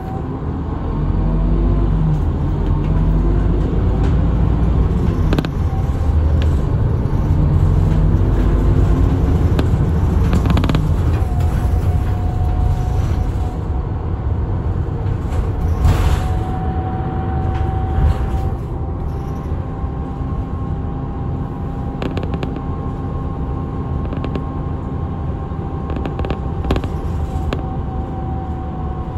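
Route bus running, heard from inside the cabin: engine and road rumble. In the first ten seconds the engine note climbs repeatedly as the bus pulls through its gears. After that the bus runs more quietly with a steady high whine and a few knocks and rattles.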